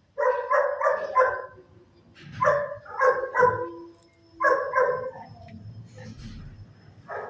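A dog barking in quick runs: three bursts of three or four barks each, about a second apart, then one faint bark near the end.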